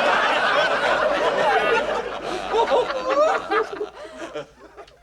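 Studio audience laughing after a punchline, the laughter dying away near the end.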